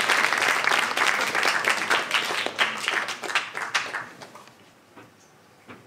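Audience applauding, the clapping dying away about four seconds in, then a couple of faint knocks.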